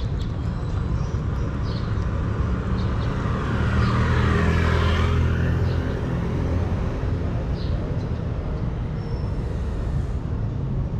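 A motor vehicle passing, swelling to its loudest about four to five seconds in and then fading, over a steady low rumble. A few faint crunches come from a cat chewing dry kibble close by.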